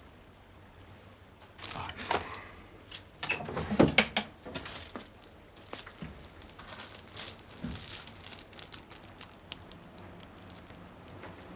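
Rustling and crinkling with scattered light clicks and knocks as things are handled, the loudest cluster about four seconds in.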